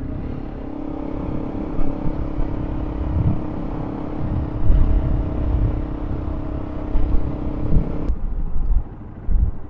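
Honda CRF300L Rally's single-cylinder engine running at a steady pace under way, with heavy wind rumble on the microphone. The sound cuts off abruptly about eight seconds in.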